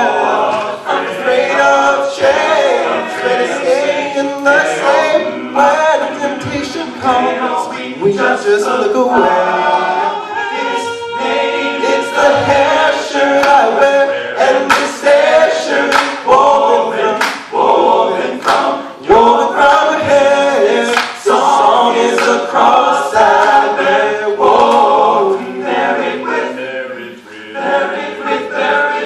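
Men's a cappella group singing, a soloist on a microphone over the rest of the group's backing vocals, with sharp percussive hits throughout.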